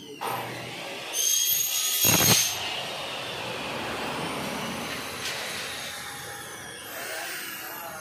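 Sheet glass scraping with a high, ringing squeal for about a second and a half, a heavy thump in the middle of it, then a steady hiss of shop noise.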